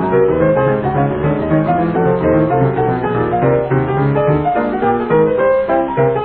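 Background instrumental music led by piano, a continuous run of notes at an even loudness.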